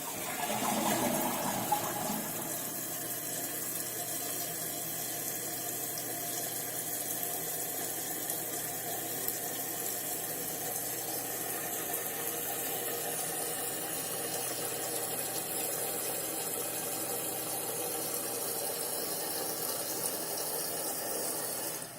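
Toilet refilling after a flush: the last of the bowl draining in the first couple of seconds, then water running steadily through the tank's fill valve with a hiss, shutting off suddenly near the end.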